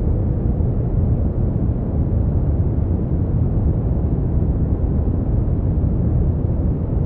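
Brown noise: a steady, even rumbling hiss weighted toward the low end, unchanging throughout.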